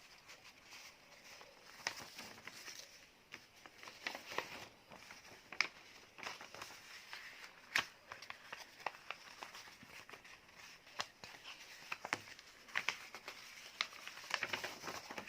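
Sheet of paper being handled and folded, with irregular crisp crinkles and sharp clicks as the creases are pressed down.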